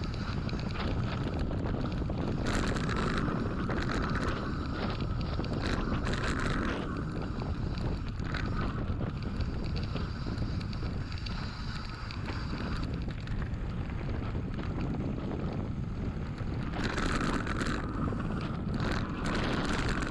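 Wind buffeting the microphone and mountain-bike tyres rumbling over a dirt track while descending, with a few louder spells of hiss.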